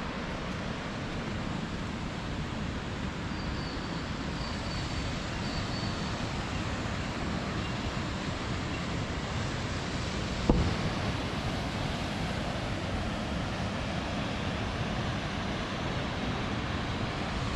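Waterfall rushing, a steady even noise of running water. A single sharp knock about ten seconds in.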